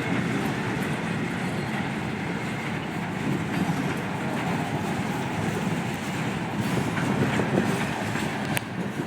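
Freight cars of a manifest train rolling past, a steady noise of steel wheels on the rails, with a single sharp click near the end.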